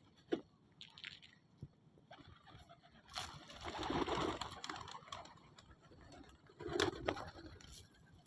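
Pigeon cooing in a few low, irregular bouts, the longest a couple of seconds in the middle, with a few scattered knocks and rustles.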